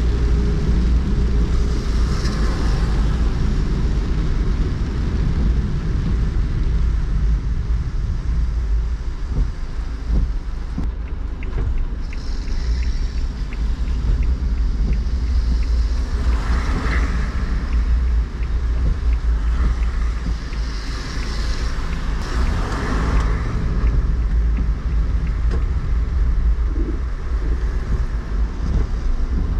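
Car driving on wet city streets in heavy rain, heard from inside the car: a steady low road rumble with swells of wet-tyre hiss several times.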